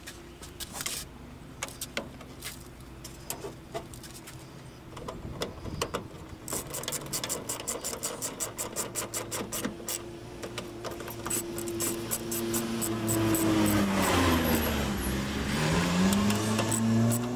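A hand ratchet clicking in quick, even strokes as the mirror's 8 mm mounting nuts are run down, with scattered taps of tools and parts against the bare steel door. In the second half an engine-like hum grows louder, its pitch dipping and then rising again near the end.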